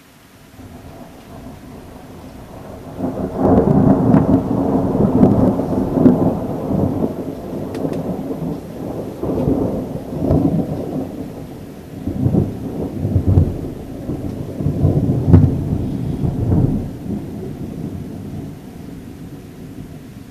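A long, rolling peal of thunder. It builds over the first few seconds, rumbles low in repeated surges for about fifteen seconds, then dies away.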